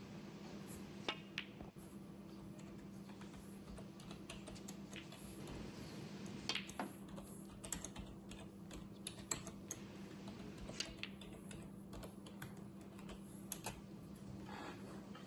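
A scattered, irregular series of light sharp clicks over a faint steady hum.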